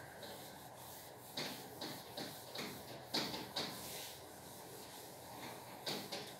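Cloth duster wiping a whiteboard: a series of faint, short rubbing strokes, several in quick succession in the middle and one more near the end.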